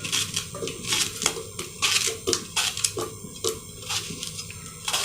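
Knife slicing raw green plantain into thin pieces, a steady run of short knocks about three a second.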